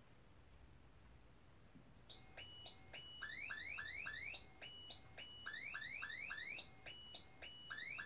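iPhone alarm going off about two seconds in: a repeating electronic tone of short rising beeps, set off as a wake-up alarm.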